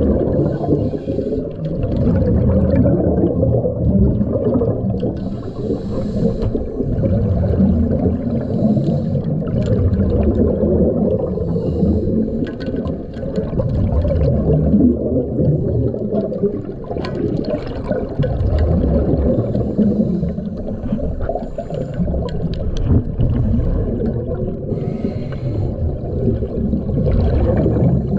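Underwater bubbling and churning from scuba divers' exhaled bubbles and waves at the surface, heard as a muffled rumble that swells and dips unevenly.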